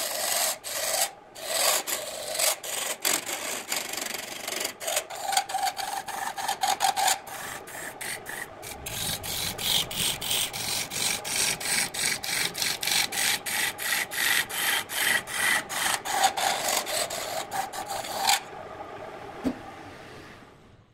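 A lathe turning tool cutting a spinning wooden vase blank: a loud, steady scraping in quick, even pulses. The cutting stops a couple of seconds before the end, and only a faint running sound is left, fading away.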